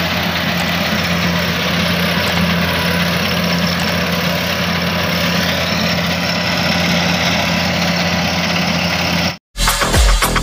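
Kubota AR96 combine harvester running with a steady engine hum and machine noise. It cuts off suddenly about nine seconds in, and upbeat electronic music with a steady beat follows.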